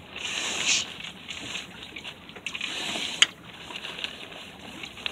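Rustling sailcloth being gathered by hand at a sailboat's mast, with wind rushing past and swelling now and then. There is one sharp click about three seconds in.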